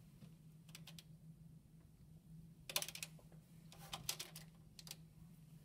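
Scattered light plastic clicks and taps of felt-tip markers being handled and set down on a table, bunched together about three seconds in, over a faint steady hum.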